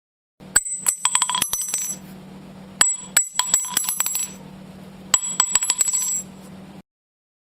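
A small metal bell rung in three bursts of rapid strikes, each burst about a second of ringing, roughly two seconds apart, over a low steady hum.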